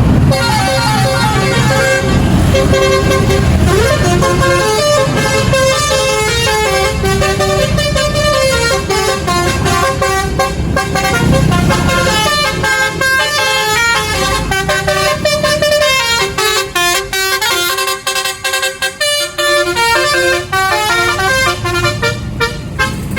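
Tour bus's multi-tone basuri telolet horn playing a melody of stepped notes over the low running of the bus engine. In the second half the notes come short and rapid.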